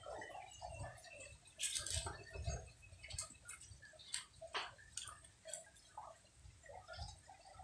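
Faint, irregular clicks and knocks of thin wooden sticks against a wooden chopping block and tile floor, the loudest cluster about two seconds in.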